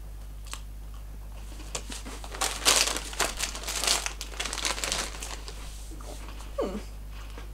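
Crinkling and crackling as honey biscuits are bitten and handled in their plastic bag: a cluster of rapid crackles through the middle, then a short hummed 'mm' near the end.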